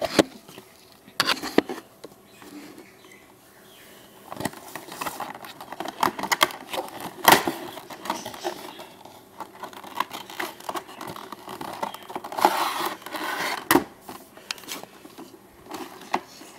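A cardboard model box and its plastic packaging being opened and handled: scrapes, rustling and sharp clicks, with a few louder knocks along the way.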